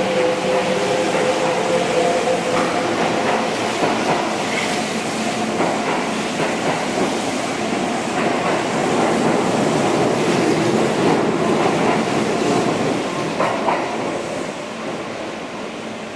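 Kintetsu limited express electric train moving along an underground station platform: steady rumble of wheels and running gear, echoing off the station walls, growing fainter over the last few seconds.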